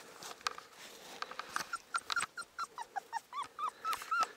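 A month-old Cane Corso puppy whimpering: a quick run of short, high, arching cries, about four a second, starting about a second in and growing louder.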